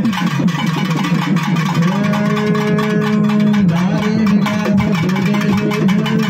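Music: a quick run of short low notes, then from about two seconds in long held low notes that step to a new pitch a little before four seconds.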